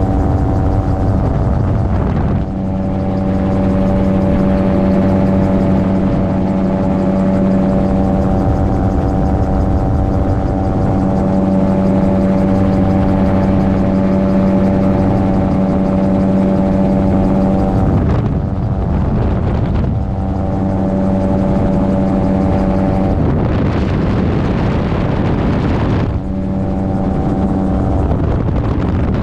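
Gyroplane's engine running at a steady speed under heavy wind rush. Its steady tone blurs and breaks up twice in the second half.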